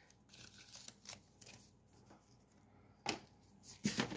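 Faint rustling and small clicks of plating supplies being handled on a paper-towel-covered counter, with two sharper clicks about three and four seconds in.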